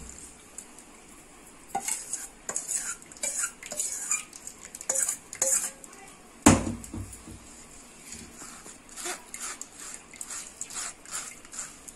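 A steel spoon scraping and clinking against a steel pan and a mesh strainer while jaggery syrup is strained, with one loud knock about six and a half seconds in.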